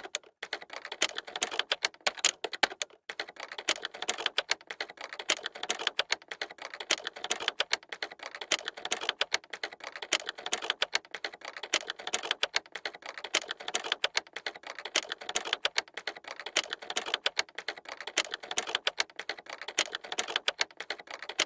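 Fast, continuous keyboard typing: a steady stream of key clicks, many a second.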